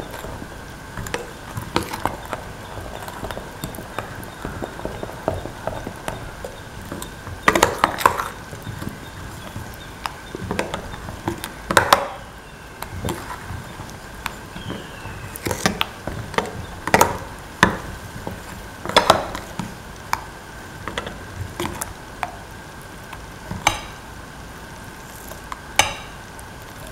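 A metal spoon stirring semolina pancake batter in a bowl to break up lumps, with irregular sharp clinks every few seconds where the spoon knocks against the bowl.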